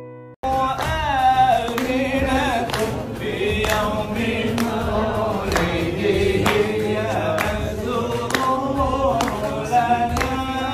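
Group vocal singing in unison with a struck percussion beat, as a music track; it starts about half a second in after a brief silence.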